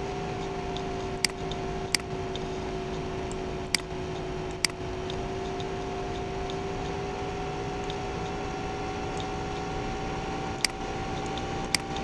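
Computer mouse clicking six separate times, sharp single clicks in two clusters, over a steady electrical hum with a faint drawn-out whine.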